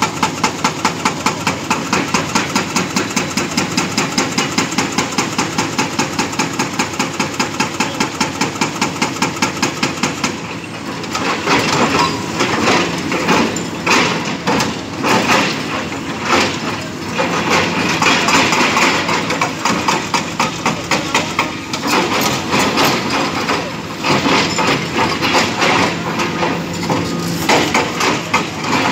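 Excavator-mounted hydraulic breaker hammering reinforced concrete: fast, even blows, about four a second, for roughly the first ten seconds, then irregular stop-start bursts of blows, over the excavator's diesel engine running.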